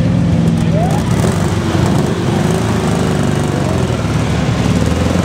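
Engines of several mud-bogging off-road trucks running together, a loud steady drone whose pitch wavers slightly.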